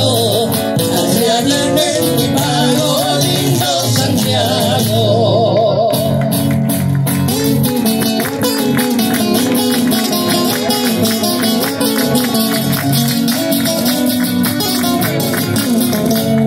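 Live Argentine folk music, a gato: voices singing with vibrato over strummed acoustic guitars, the strumming turning to a steady, even rhythm about six seconds in.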